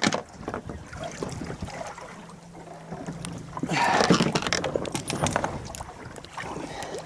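Scattered knocks and clicks of fishing gear being handled on a small boat, over wind and water noise, with a louder clatter about four seconds in.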